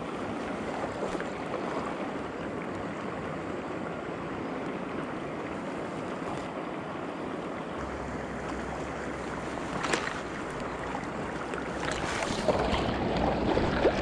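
Mountain stream rushing steadily over rocks. A sharp knock about ten seconds in and a short burst of clattering handling noise near the end.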